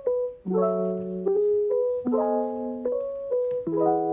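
Background music: a soft electric piano playing a simple melody over chords that change about every one and a half seconds.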